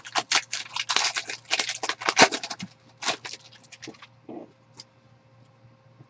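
Foil wrapper of a 2015 Topps Chrome Jumbo baseball card pack crinkling and tearing as it is ripped open by hand. A dense, rapid crackle lasts about four seconds and then thins to a few faint crinkles.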